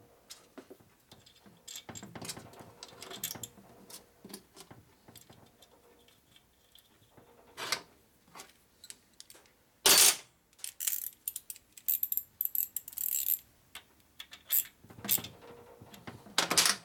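Metal tools and engine parts clinking and clattering as they are picked up, set down and fitted on a steel workbench, with a loud sharp metallic clank about ten seconds in followed by a run of quick clinks.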